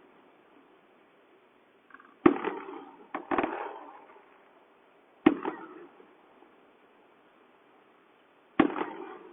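New Year's Eve fireworks going off: four or five separate sharp bangs a second to a few seconds apart, each trailing off in an echoing tail.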